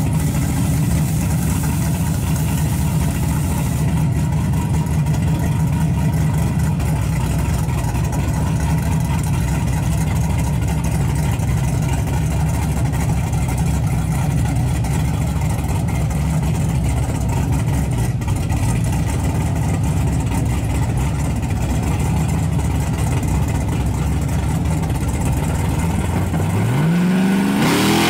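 A drag-racing pickup truck's engine idling with a steady low rumble at the starting line, then revving in a fast rising sweep as it launches near the end.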